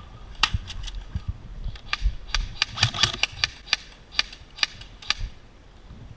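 Airsoft guns firing in a skirmish: a string of sharp, irregularly spaced shots, with a quicker cluster of shots near the middle.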